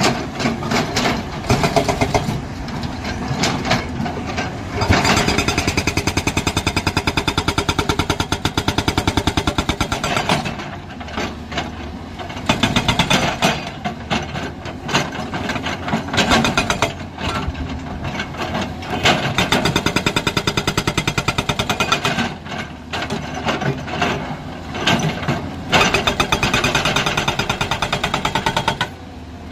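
Excavator-mounted hydraulic breaker hammering rock, a fast steady train of chisel blows in runs of several seconds with short pauses between, over the running diesel engine of the JCB excavator.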